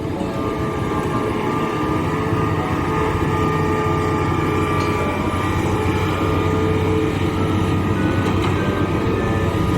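Excavator diesel engine and hydraulics running steadily, with a low rumble and a steady high whine, growing slightly louder.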